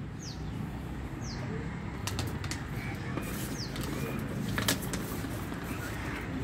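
Hard plastic wheels of a toddler's ride-on toy rolling over brick pavers, a low steady rumble with a few clicks. A bird gives several short, high, falling chirps.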